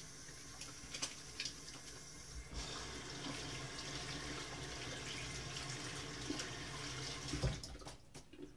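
Bathroom sink tap running while soapy hands are washed under it. The water comes on about two and a half seconds in and shuts off near the end.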